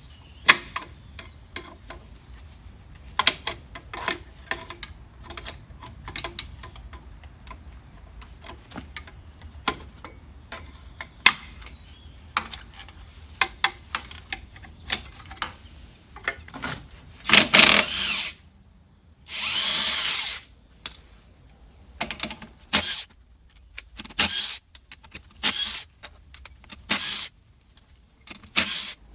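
Scattered clicks and knocks of hand tools on the wheel, then a cordless impact wrench run in short bursts to take the lug nuts off a truck's front wheel. The two longest bursts, about a second each, come just past the middle, and shorter ones follow.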